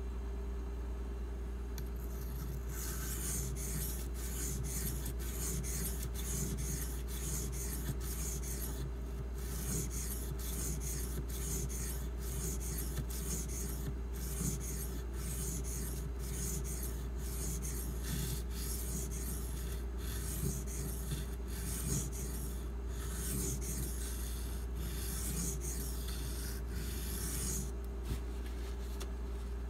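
A 1095 carbon-steel pocketknife blade being stroked back and forth on a Shapton Glass sharpening stone while its bevel is reprofiled. A long run of quick scraping strokes starts a couple of seconds in and stops shortly before the end, with a short pause about a third of the way through. A steady low hum runs underneath.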